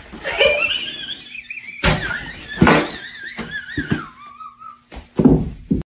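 Several sharp thuds of objects hitting a hardwood floor, four in all, the last two close together near the end. Between them a wavering high tone slides slowly downward.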